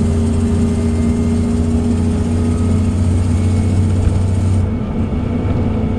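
Interior sound of a 2004 Orion VII CNG transit bus under way: a steady low engine and drivetrain drone with a constant whine over it. Near the end the high hiss falls away.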